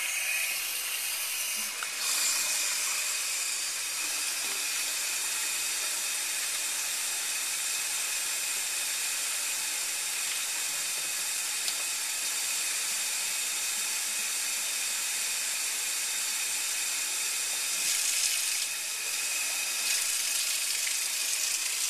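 Kitchen tap running steadily, filling a 2-litre plastic soda bottle with water. Near the end the stream falls straight into the stainless-steel sink.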